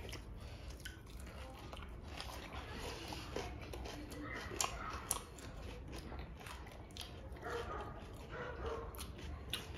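Faint, close-miked eating sounds: chewing and crunching of food, with many small clicks and smacks.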